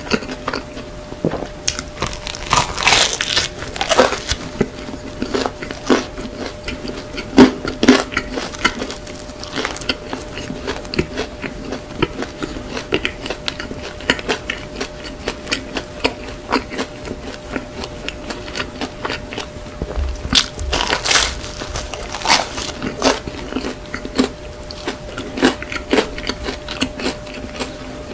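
Close-miked chewing of soft, sugar-coated bread: wet mouth clicks and smacks at an uneven pace, with a few louder bites about three, eight and twenty-one seconds in. A faint steady hum runs underneath.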